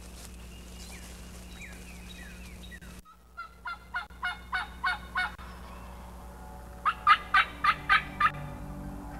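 Two runs of turkey yelps: about eight evenly spaced notes growing louder a few seconds in, then a louder run of six later on. Faint songbird chirps come before them.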